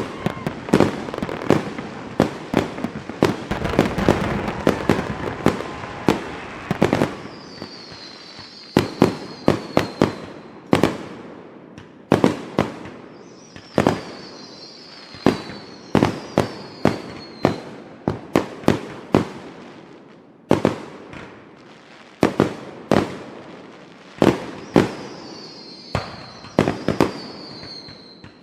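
Fireworks going off in quick succession: many sharp bangs, with a dense barrage of rapid bangs and crackle in the first few seconds. Three times, high whistles falling slightly in pitch rise above the bangs.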